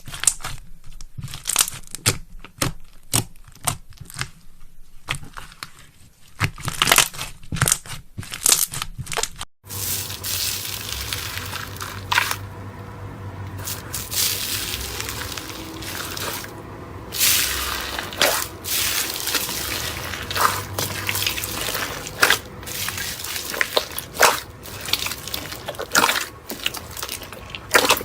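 Slime being squeezed and pressed by hand. For the first nine seconds or so it gives crisp, crackling clicks. After a sudden change it turns to wetter squishing and popping over a low hum.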